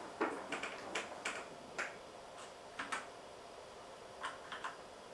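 Computer keyboard keys being pressed: a dozen or so irregular clicks.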